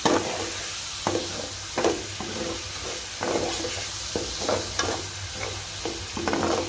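Chopped tomatoes and spices sizzling in hot oil in a pan while being fried down (bhuna), with a spoon stirring them and scraping and knocking against the pan at irregular intervals.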